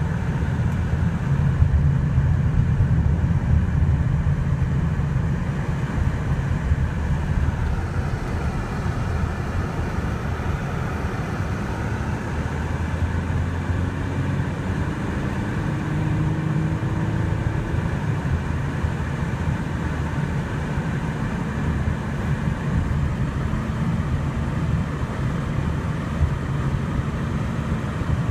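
Car driving on a snowy road, heard from inside the cabin: a steady low engine and tyre rumble with road noise. About halfway through, a faint engine note climbs slowly in pitch.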